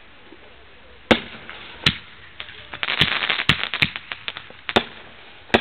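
Fireworks going off: a second of quiet, then single sharp bangs, a quick run of crackling pops and bangs in the middle, and two more bangs near the end.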